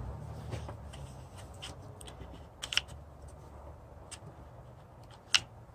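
A handful of light clicks and taps from a hot glue gun being worked along a wooden jig as dots of glue are laid in its groove, the sharpest click about five seconds in, over a faint low hum.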